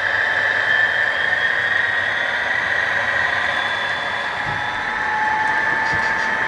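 Engine sound of HO scale Western Pacific model diesel locomotives as a freight train passes, a steady running sound with a high whine held throughout.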